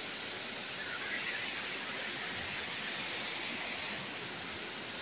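Steady rush of flowing water from the river and waterfall, an even hiss with no breaks.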